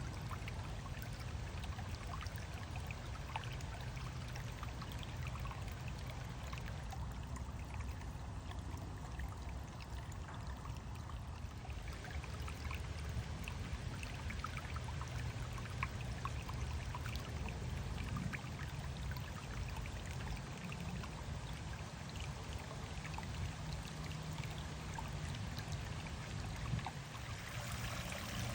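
Woodland stream flowing and trickling over rocks: a steady rush of water with many small splashes, the splashing growing brighter near the end.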